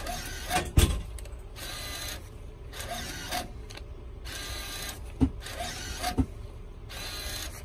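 Deposit safe's bill acceptor drawing in banknotes one by one: about six short motor whirs, one per bill, each under a second long. A few knocks come in between, the loudest about a second in.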